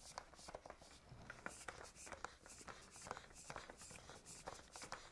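Faint, irregular clicking and rubbing of hands twisting an antenna mast, screwing it onto a tripod's 1/2-inch pipe-thread coupler.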